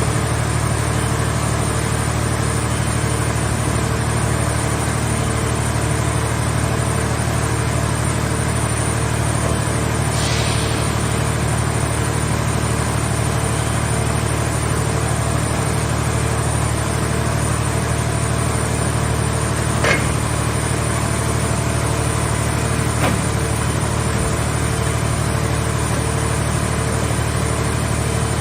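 The engine of a mobile car-shell baler running steadily at an even pace, with a short hiss about a third of the way in and two light clicks later on.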